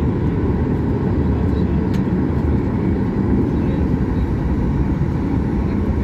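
Cabin noise of a Boeing 737-800 rolling on the runway, heard from a window seat: its CFM56-7B turbofan engines running, a steady low rumble with a steady hum.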